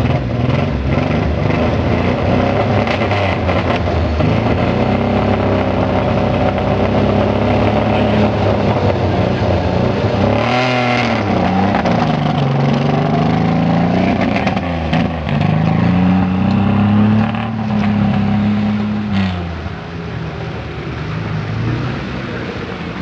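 Off-road 4x4 engines revving hard while a stuck SUV spins its wheels in deep mud and water, the engine pitch climbing and falling again and again. The revving drops away near the end.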